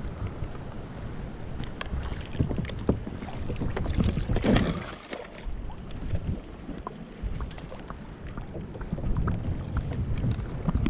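Wind buffeting the microphone and water slapping and lapping against a plastic fishing kayak's hull, with scattered small knocks. There is a louder rush of noise about four and a half seconds in.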